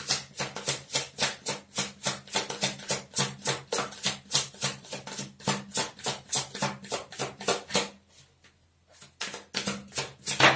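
A deck of Tarot Z cards being shuffled by hand, with quick rhythmic slaps of cards, about five a second. They break off for about a second near the end, then start again.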